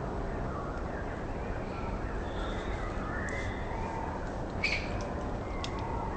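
Outdoor ambience: a steady low rumble of background noise under scattered faint bird calls, with one louder, sharper call about four and a half seconds in and a few short clicks near the end.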